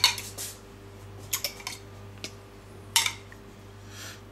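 Spoon clinking and scraping against a ceramic bowl, a few short sharp strikes with the loudest about three seconds in.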